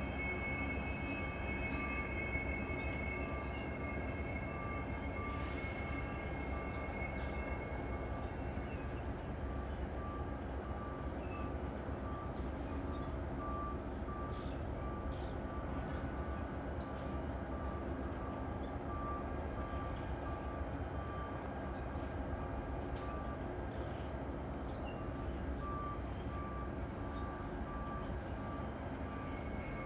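Steady low rumble of a large railroad yard. A high, steady squeal fades out about eight seconds in, and a faint beep repeats about once a second.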